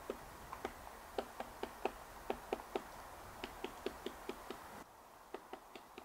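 Great spotted woodpecker pecking at the bark of a tree trunk while foraging: a string of sharp, irregular taps, a few a second in short runs.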